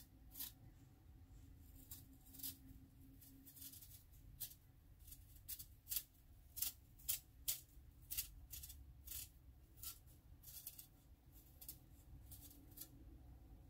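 Kitchen knife blade cutting the thick peel off a round of daikon radish: short, faint rasping cuts, about two a second, as the blade works around the round.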